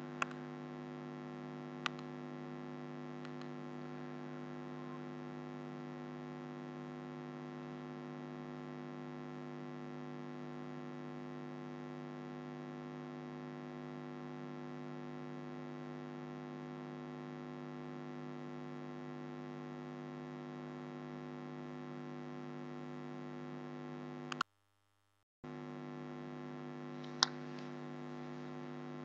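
Steady electrical hum with a buzzy stack of overtones, picked up on the recording line. A couple of sharp clicks come in the first two seconds. Near the end the sound cuts out completely for about a second, and another click follows soon after.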